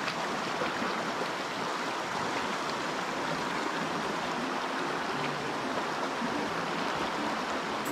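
Shallow rocky mountain stream rushing steadily over stones in a riffle.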